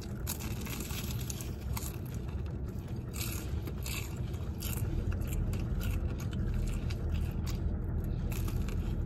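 Close-up crunching and chewing of a crispy fried turon, a banana spring roll, with a bite at the start and another near the end, over a steady low hum.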